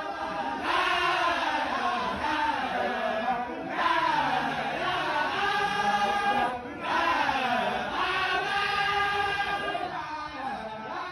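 A large group of voices chanting a Sufi dhikr in unison, in long rising-and-falling phrases with two short breaks for breath.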